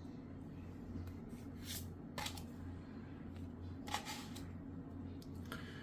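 Trading cards being handled and set out: a few short clicks and rustles of card and wrapper over a steady low hum.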